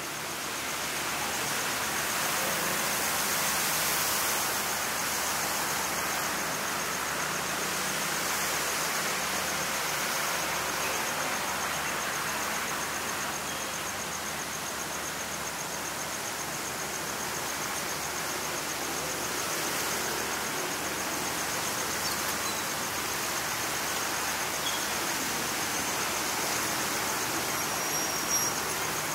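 Steady hiss of rain falling, even and unchanging, with a faint high whine running through it.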